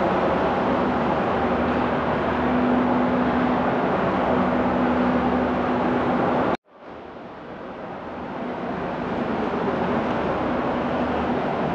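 A steady, loud rumbling noise with a faint low hum. It cuts out abruptly about six and a half seconds in, then fades back up to near its former level.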